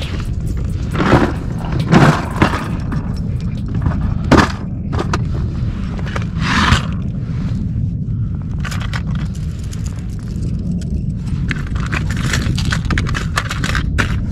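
Knocks, clacks and scrapes of fishing tackle being handled: a lure with treble hooks and a plastic tackle tray, with several loud knocks in the first seven seconds and a run of lighter clicks and rattles near the end. A steady low rumble of wind on the microphone runs underneath.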